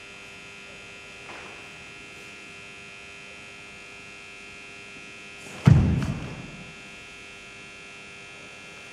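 Palm strikes from the opening of the Kanku-dai karate kata: a sharp slap about halfway through, with a second slap a moment later, each ringing briefly off the hall, over a steady hum.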